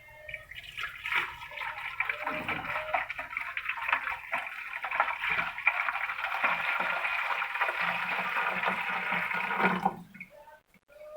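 Water poured from a one-gallon pitcher into a humidifier's water tank: a steady splashing pour that stops abruptly near the end.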